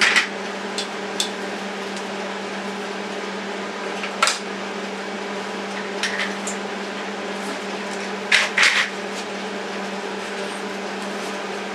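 Electric welder humming steadily under a constant hiss while the snapped metal frame of an office chair is welded. A few sharp crackles and metallic clicks break through: one at the start, one about four seconds in, one about six seconds in, and the loudest cluster about eight seconds in.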